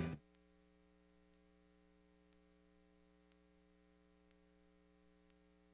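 A music cue cuts off right at the start, leaving near silence with a faint, steady electrical mains hum.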